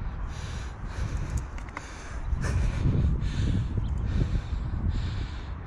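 Wind gusting across the microphone, a low rumble that swells and eases.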